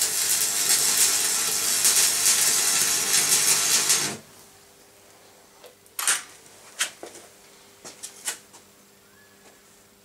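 Electric arc welding on steel: a loud, steady crackling sizzle for about four seconds that cuts off suddenly. It is followed by a few separate sharp clicks and knocks.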